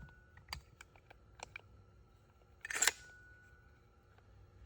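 Small metal and plastic furler parts being handled: a few light clicks, then a short louder rustle or clatter about two and a half seconds in.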